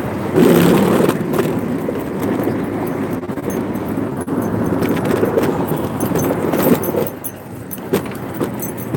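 Wheels of a dog-pulled rig rolling and rattling over sidewalk concrete, with frequent small metallic clicks and jingles from the gear, and city street traffic around.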